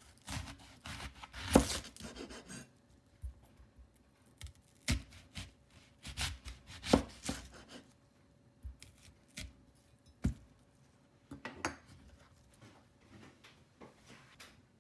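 Kitchen knife slicing a peeled raw new-season onion into thick rounds on a wooden cutting board: crisp crunches through the layers and the blade knocking on the board. The cuts come in several bursts with pauses between, the loudest knock about a second and a half in.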